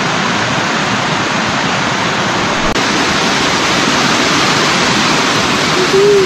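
Upper Marr Branch Falls, a waterfall, pouring with a steady, loud rush of water.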